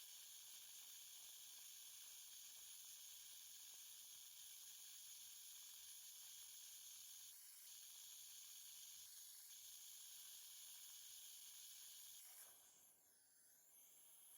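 Faint, steady high-pitched hiss of dental air equipment running, with two brief dips, cutting off about twelve seconds in.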